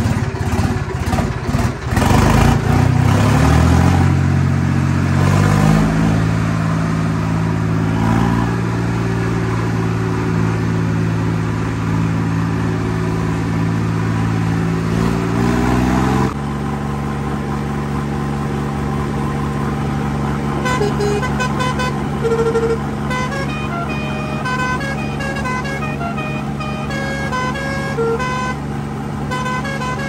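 Sonalika tractor's diesel engine picking up speed, its pitch rising, then running steadily. From about 20 seconds in, a musical multi-tone air horn plays a tune of short stepped notes over it.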